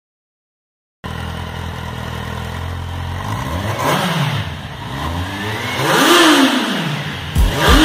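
Kawasaki Z800's 806 cc inline-four engine starts to be heard about a second in, idling steadily. It is then revved three times, the pitch rising and falling each time; the second and third revs climb higher than the first.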